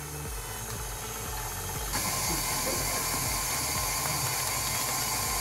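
KitchenAid Artisan stand mixer running steadily with its flat beater, mixing creamed butter and icing sugar as eggs go in. About two seconds in, a higher hiss joins and the sound gets a little louder.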